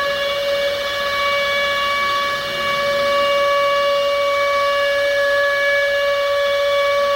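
Civil defense siren holding one steady pitch in the middle of its wail, sounding a nuclear attack warning.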